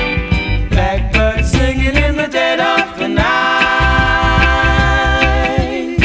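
1970s reggae song playing from a vinyl single: a pulsing bass line and off-beat guitar under singing. A long note is held from about three seconds in.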